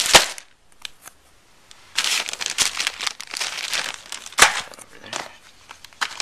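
Clear plastic packaging crinkling and rustling as it is handled and unwrapped: a short sharp crinkle at the start, a brief lull, then steady crinkling from about two seconds in with one loud crackle a little past the middle.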